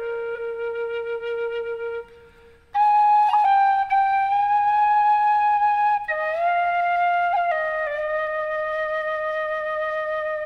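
Slow music on a flute-like wind instrument, in long held notes: one note fades out about two seconds in, and after a short pause a higher note is held, then a lower one.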